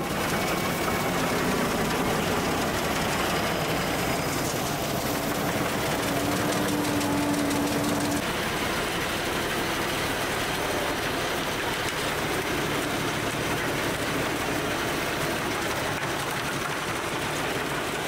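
Heizohack drum wood chipper running under load, its drum chipping brushwood and crown material fed in by the crane, a steady, dense mechanical noise.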